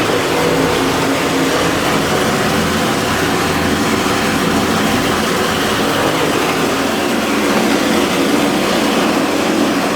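Steam boiler making a loud, continuous rough rumbling noise that holds steady throughout, with no single bangs standing out.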